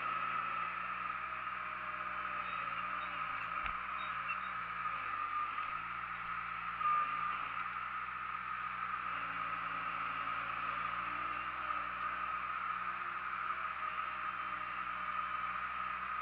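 Bobcat skid-steer loader's diesel engine and hydraulics running steadily, heard from the operator's seat as the bucket moves dirt, with one sharp knock about three and a half seconds in.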